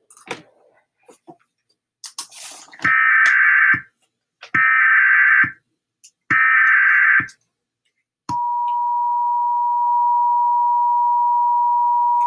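Emergency Alert System SAME header: three bursts of buzzy data tones, each about a second long. About 8 seconds in comes the steady two-tone EAS attention signal, which introduces a flash flood warning. A few faint clicks come before the first burst.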